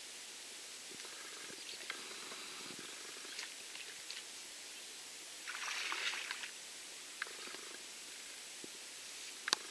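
Quiet outdoor ambience: a faint steady hiss with a few soft clicks, and a brief rustle about five and a half seconds in.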